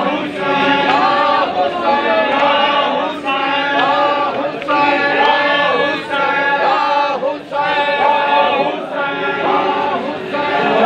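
Group of men chanting a Punjabi noha (Shia lament) together without instruments, the phrases breaking about every second and a half.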